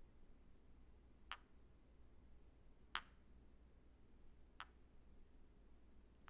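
Three light clinks of small hard objects, about one and a half seconds apart, each with a brief high ring; the middle one is loudest. Between them, near silence.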